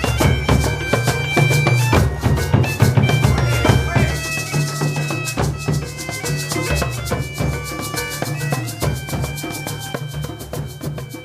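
Bagpipe playing a melody over its steady drones, with drums beating along; the music fades down toward the end.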